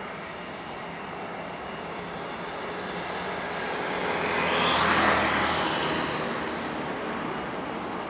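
A vehicle passes close by: a rush of noise swells to a peak about five seconds in and then fades, over a steady background hum.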